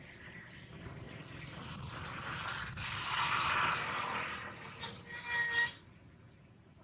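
Baby macaque giving a short, shrill cry about five seconds in, the loudest sound here. Before it, a steady noise haze swells and fades.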